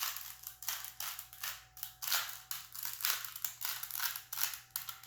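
Plastic Rubik's Cube being turned quickly by hand: a rapid, uneven run of clicks and scrapes as its layers twist, roughly four or five turns a second.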